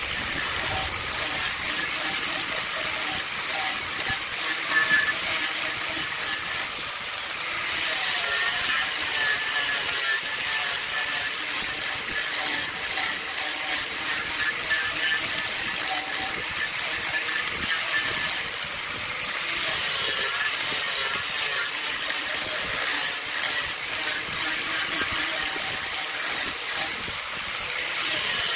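Handheld power grinder with a sanding drum running against wood: a steady abrasive hiss over the motor's whine, easing briefly twice, about 7 and 18 seconds in.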